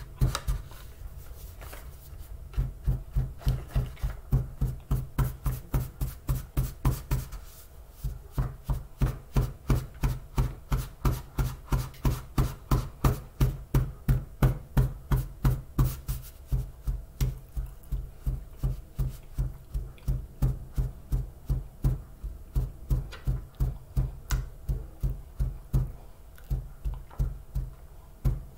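Small paper carton filled with tapioca starch, rapped down on a table about three times a second to pack the powder tight. The rhythm breaks off briefly about a second in and again near the middle.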